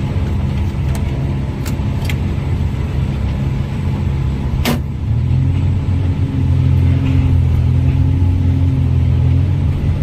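Heavy diesel machinery running with a steady low drone, a few light clicks and one sharp metallic clank a little under halfway through; the engine then comes up in level and holds there.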